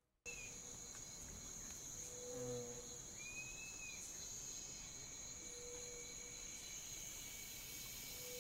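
Faint nature ambience of crickets and other insects chirping steadily, starting suddenly about a quarter second in. A short lower call repeats about every three seconds, and a single arched chirp comes a few seconds in.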